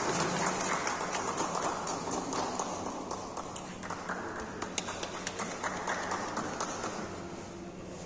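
Applause from a small crowd tapering off into scattered hand claps.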